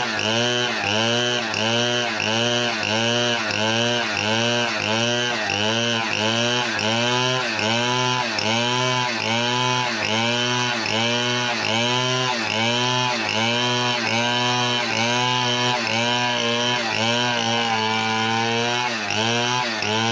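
Two-stroke petrol chainsaw engine running, its pitch swinging up and down evenly about twice a second. Near the end the swings slow and stretch out.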